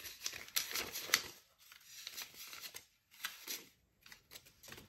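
Paper banknotes rustling and flicking as a stack of bills is counted out by hand, in a string of short crisp rustles that grow sparser near the end.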